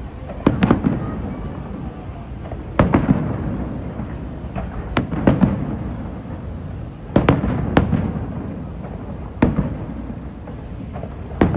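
Aerial fireworks shells bursting: sharp booms every two seconds or so, some in quick pairs, each trailing off in a rolling echo.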